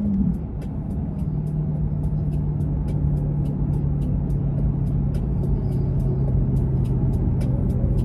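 Car engine running with a steady drone that drops in pitch just after the start, as at a gear change, then eases slowly lower. Music with a regular ticking beat plays along.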